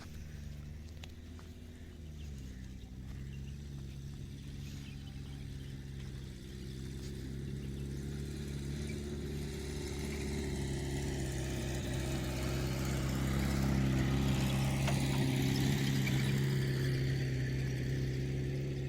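A motor vehicle's engine running steadily, its pitch gliding briefly at the start, then growing gradually louder until about three quarters of the way through before easing off slightly.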